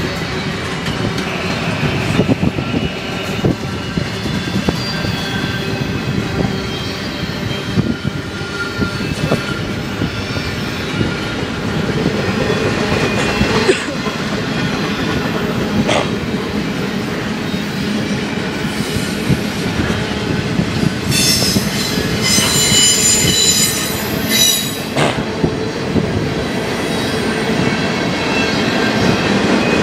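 Freight train cars rolling past: a steady rumble with occasional sharp clicks from the wheels on the rails. About 21 seconds in, the wheels squeal at a high pitch for a few seconds.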